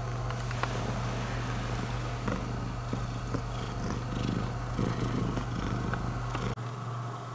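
Long-haired calico cat purring steadily, a continuous low rumble that cuts off abruptly about six and a half seconds in.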